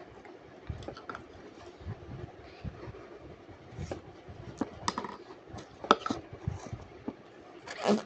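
Sticky slime being squished and stretched by hand, giving irregular small clicks and crackly pops, with a few sharper pops about five, six and eight seconds in.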